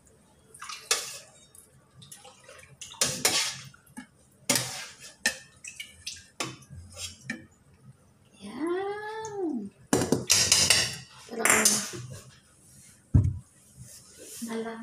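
Glass bowl and dishes knocking and clinking on a kitchen counter in a string of short, irregular clatters. A little after halfway comes a single drawn-out vocal call that rises and falls in pitch, like a meow.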